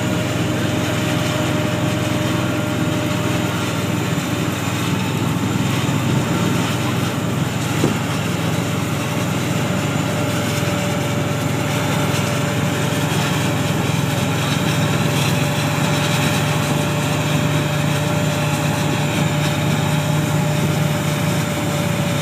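John Deere S670 combine harvester running steadily while threshing wheat, its engine and machinery making a continuous drone with a steady whine over it.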